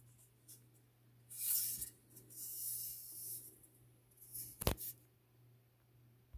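Handling noise from a wooden board being turned in the hand close to the phone. There are two spells of soft rustling and scraping, then a single sharp click near the end, over a steady low hum.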